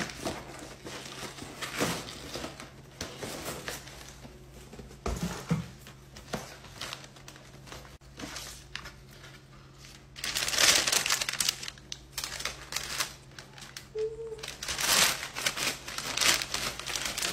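Paper crinkling and rustling, with small knocks from handling, as a shoe box is opened and the shoes are unwrapped; loudest in two stretches about ten and fifteen seconds in.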